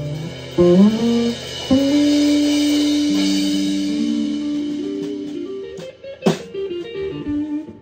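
Live electric guitars playing slowly in a rehearsal room. A note is bent upward about a second in, then a long held guitar note slowly fades, followed by a few quieter notes and a sharp click about six seconds in.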